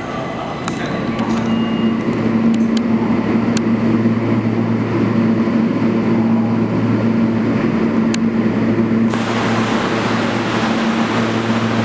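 New York City Subway R160 train pulling into the station, with a steady low hum and a few sharp clicks. About nine seconds in the sound changes abruptly to a brighter, hissier train noise.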